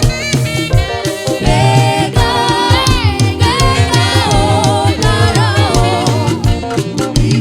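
Gospel music with singing voices, several voices together, over a steady bass and drum beat.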